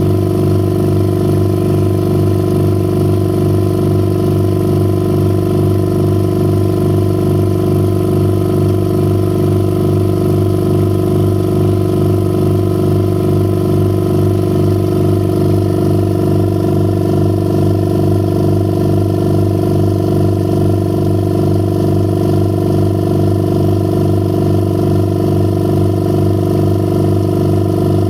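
The motor of a home-built record-cleaning machine running with a loud, steady hum and a fine even pulse.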